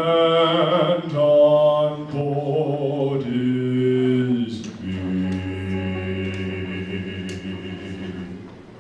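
A male voice singing the song's closing held notes. It steps down in pitch three times and ends on a long, low held note of three to four seconds that fades near the end.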